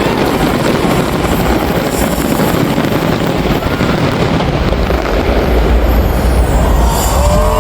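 Dense fireworks barrage: a continuous rumble of overlapping bursts and crackle, with the low booming swelling about five seconds in.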